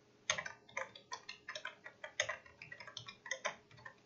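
Typing on a computer keyboard: a quick, uneven run of key clicks, several a second, as a line of text is entered.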